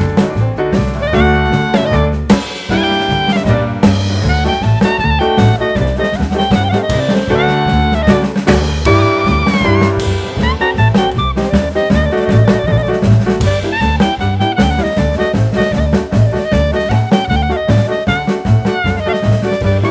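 Background music: an instrumental jazz track with drums and a horn-like melody over a steady beat.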